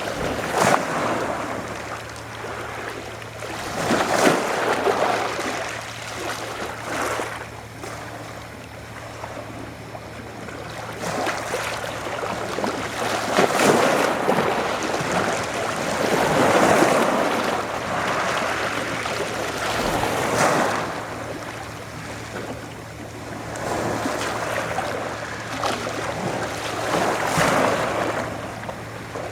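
Adriatic Sea waves washing onto the shore, surging and falling back every few seconds, with a faint steady low hum underneath.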